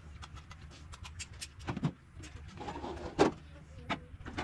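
Dishes and utensils clinking and knocking at a kitchen sink as they are washed, a string of sharp clatters with the loudest a little after three seconds in, over a low steady hum.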